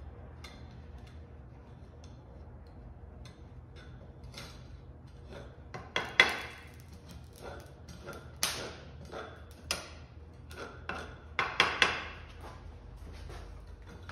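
Irregular sharp metallic clinks and knocks of steel tongs and tools against a crucible of molten bronze during casting, about ten of them starting about six seconds in, the first the loudest, over a low steady rumble.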